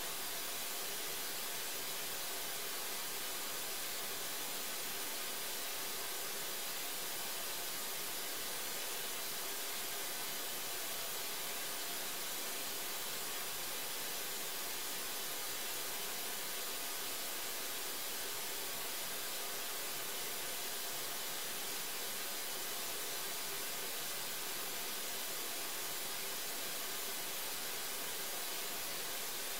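Steady, even hiss of noise that never changes, with a faint steady tone underneath.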